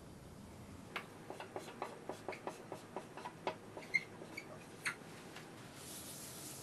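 Dry-erase marker writing on a whiteboard: a string of light taps and short squeaks as the letters are drawn, then a soft swishing near the end as the board is wiped.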